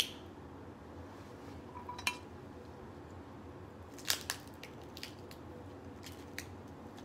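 Crab leg shell cracked and snapped apart by hand: a few short sharp cracks, the loudest about four seconds in.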